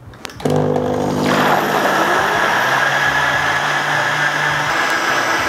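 Bosch vacuum jug blender's motor starting up and running steadily, blending a thin pancake batter of eggs, milk and flour. A hum comes in about half a second in, and the whir of the blades churning the liquid builds up a second later.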